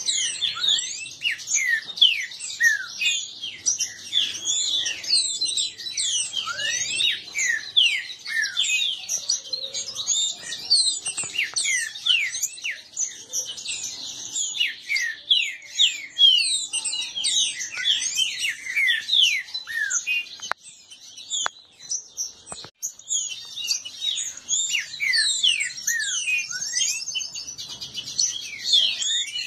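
Green-winged saltators (trinca-ferro) singing in competition: a fast, jumbled stream of short sweeping whistled notes, overlapping almost without pause. There is a brief lull about three-quarters of the way through, broken by a few sharp clicks.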